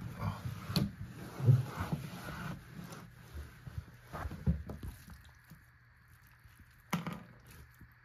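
Irregular knocks, thumps and scrapes of handling at the base of the washer, busiest in the first half, with one sharp click about seven seconds in.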